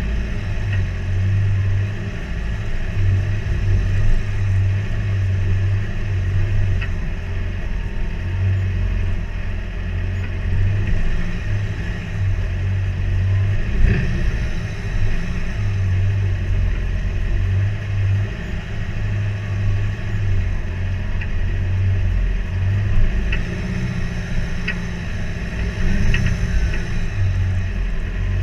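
A Mitsubishi Triton's engine running at low revs as the 4WD crawls up rock steps, with an uneven low rumble. A few sharp clicks come through, most of them near the end.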